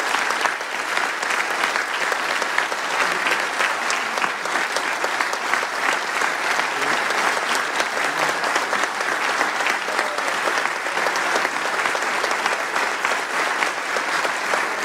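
A large assembly applauding steadily, a dense even clapping of many hands that holds level throughout.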